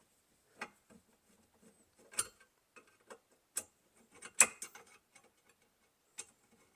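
Scattered light clicks and taps of hand tools and small metal parts being handled in a car's steering column during turn signal switch work, the sharpest a little past halfway.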